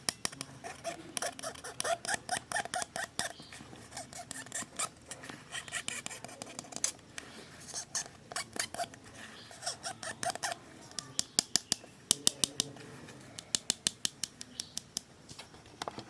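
Handling of LED light packaging: sharp clicks and snips, some in quick runs of several a second near the end, over rubbing and rustling.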